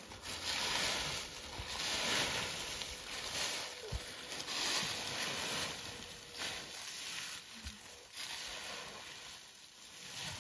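Dry fallen leaves rustling and crunching as they are scooped up by hand and packed into a woven plastic sack, coming in repeated swells.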